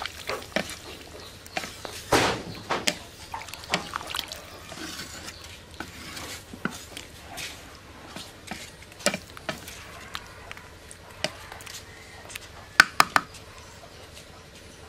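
Wooden spatula stirring kohlrabi and potato pieces in water in a metal cooking pot: irregular scrapes and knocks against the pot with liquid sloshing, and a quick run of sharp knocks near the end.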